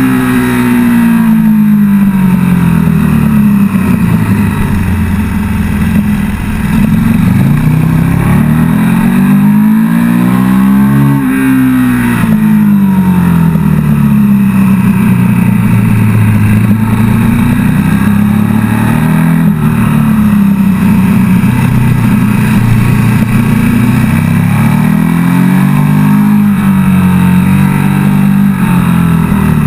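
KTM 1290 Super Duke GT's V-twin engine at track pace, revving hard through the gears: its pitch climbs and then drops several times, about a third of the way in and again near the end, holding high and steady along the straight between. Wind rushes over the microphone.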